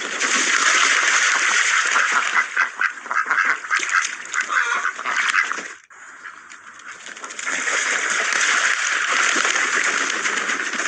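A flock of ducks quacking, with many calls overlapping into a continuous din. It breaks off for a moment about six seconds in, then starts again.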